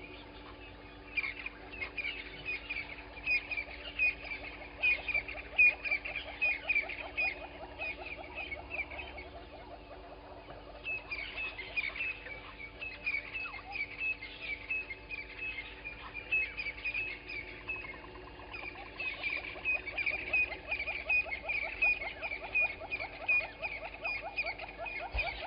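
Wild animals calling at dawn: bouts of rapid, repeated high chirps, with a fast rattling trill lower down.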